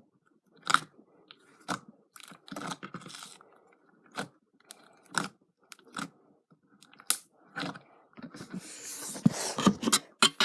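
Slime being squished and worked by hand, giving short wet sticky pops about once a second, then a denser crackling squish near the end.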